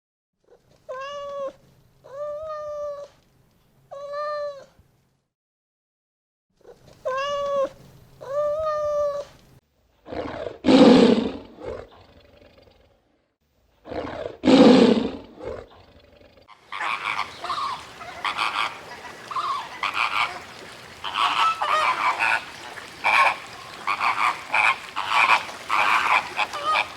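A series of animal calls from different animals: first five drawn-out pitched calls in groups of three and two, then two loud, harsh, noisy calls, then a long stretch of dense, rapid chattering.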